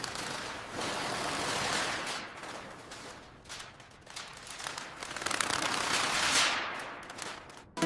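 Crackling noise made of many rapid clicks that swells and fades twice, the second swell ending in a falling sweep.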